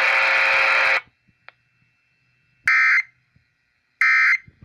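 A second of loud hiss that cuts off, then two short, harsh digital data bursts about 1.3 seconds apart: the EAS (SAME) end-of-message code, marking the close of the weather-radio warning.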